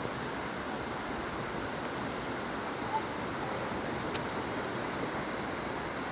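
Steady rushing noise of the sea: surf washing on a stony shore, with a faint click about four seconds in.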